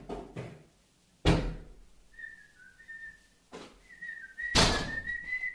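A few dull thumps, the loudest just over a second in and another about four and a half seconds in. About two seconds in, a person starts whistling a wavering tune that carries on after them.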